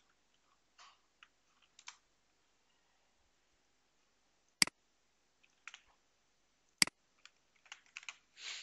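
Computer keyboard typing in short, scattered bursts and mouse clicks. The two loudest, sharpest clicks come about four and a half and seven seconds in.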